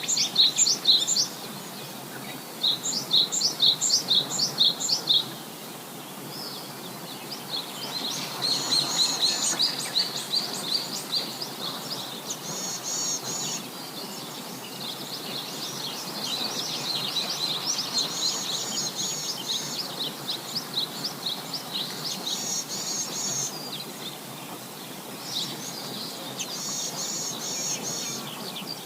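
Birds chirping in quick runs of high, repeated notes, in bursts of a few seconds, over a steady background hiss.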